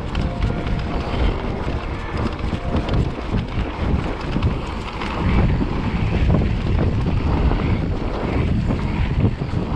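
Wind buffeting the microphone of a mountain-bike-mounted action camera while riding a trail, with the rumble and small rattles of the bike rolling over rough ground.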